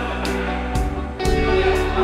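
Background music with a steady beat, guitar to the fore.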